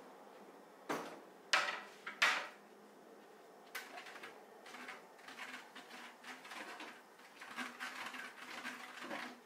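Dishes and utensils being handled at a kitchen sink: three sharp knocks in the first couple of seconds, then a long run of irregular clinks, knocks and scrapes.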